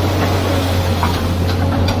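Excavator engine running steadily with a deep hum, with a few short sharp sounds in the second half.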